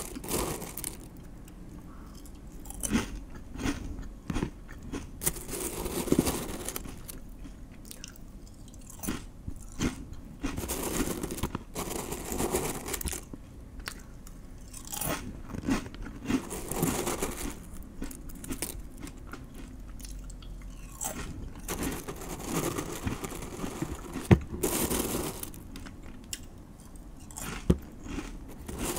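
A man chewing and biting spoon worm (gaebul) close to a microphone, in irregular bouts of chewing with a few sharp clicks, the loudest about three-quarters of the way through.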